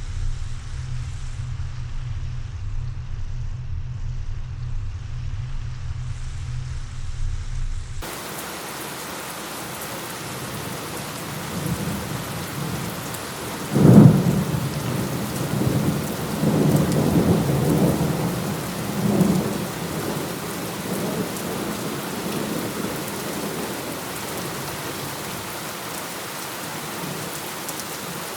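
A low rumble with little else for the first third, then heavy rain hissing steadily. About halfway through comes a sharp thunderclap, followed by several seconds of rolling thunder, before the rain carries on alone.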